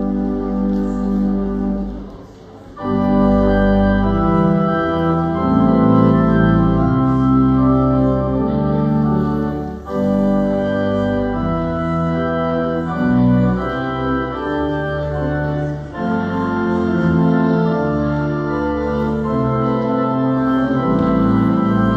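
Organ playing the closing music of a church service: full sustained chords that change every second or two, breaking off briefly about two seconds in before coming back louder.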